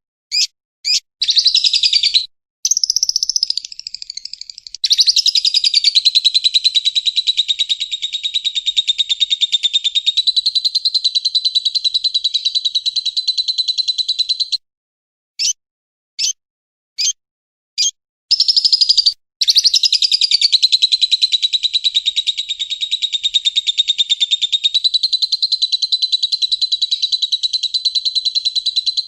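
Bird-call masteran recording for training songbirds, mixing lovebird and woodpecker calls. A few short high chirps lead into a long, fast, high trill lasting about ten seconds, and the same run of chirps and long trill repeats about halfway through.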